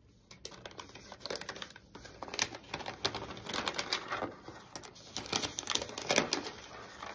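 Handling noise of unboxing a laptop: the thin protective paper sheet rustling and crinkling, with irregular light taps and scrapes from the box as the laptop is lifted out.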